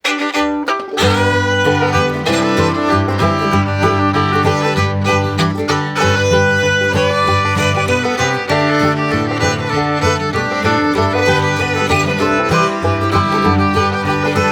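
Background music: an upbeat fiddle-led tune with guitar and a walking bass line, starting about a second in.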